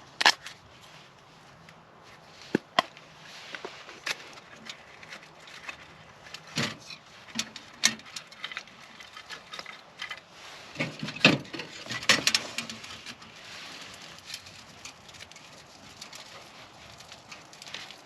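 Scattered sharp clicks and knocks over faint rustling, with the loudest knocks near the start, a few seconds in and around the middle.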